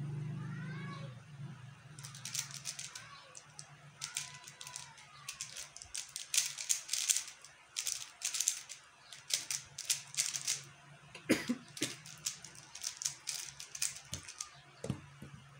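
QiYi X-Man Tornado V1 3x3 speedcube being turned at speed during a solve: rapid flurries of plastic clicking and clacking as the layers snap round, with a couple of low knocks near the end.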